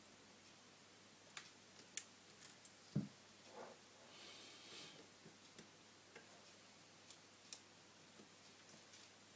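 Faint, scattered small clicks and taps of tools and small phone parts being handled during a smartphone disassembly, with a soft thump about three seconds in and a brief rustle just after.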